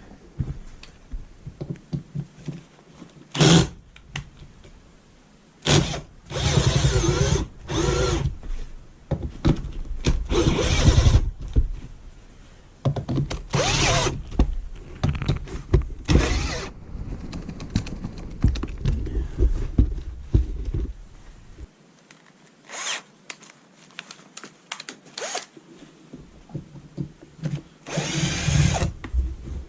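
Handheld power drill running in short bursts of about a second, about ten times, with clicks and handling noise between. This fits driving out the fasteners that hold on the end of a battery module.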